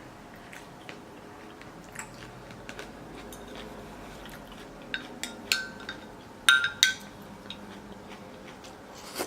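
Cutlery clinking and scraping against a dish during eating, with a few sharp ringing clinks about six and a half and seven seconds in, and quiet chewing between.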